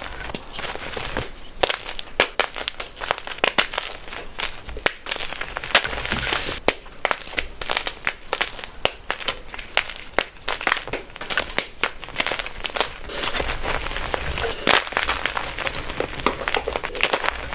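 Pressed gym chalk blocks being crushed and crumbled, a dense, irregular run of sharp crunches and crackles.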